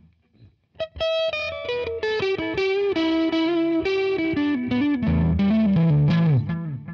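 Electric guitar, a 1984 Gibson ES-175 hollow-body, played through a Deadbeat Sound Delay Lay Lay analog delay pedal that is switched on. It plays a descending single-note line of steadily falling pitches, starting about a second in. The line fades out near the end into softer echo repeats.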